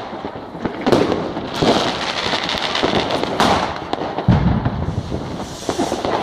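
New Year's Eve fireworks and firecrackers going off in a street: a steady crackling hiss with several sharp bangs, and a deeper boom just after four seconds in.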